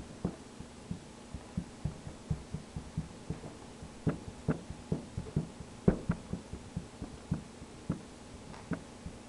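Capezio pointe shoes knocking on a hardwood floor as a dancer steps on pointe: a run of short, irregular knocks, a few a second, loudest in the middle.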